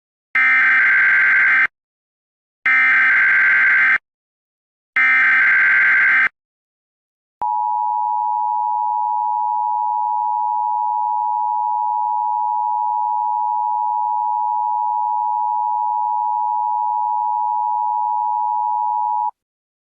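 Emergency Alert System tones: three short bursts of SAME header data, each just over a second long, followed by the steady two-tone EAS attention signal, held for about twelve seconds before it cuts off.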